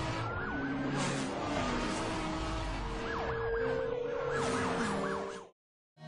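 Siren wailing, then yelping in fast rising-and-falling sweeps, over car noise. It cuts off abruptly about five and a half seconds in.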